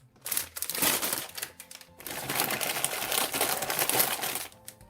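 Plastic bags crinkling and plastic model kit runners clicking against each other as they are handled, in a rapid run of crackles and clicks that dies away near the end.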